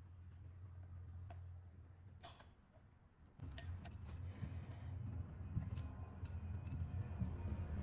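Silicone spatula folding batter into meringue in a glass bowl, with scattered soft clicks and taps against the glass. About halfway through, a low hum comes up and grows louder.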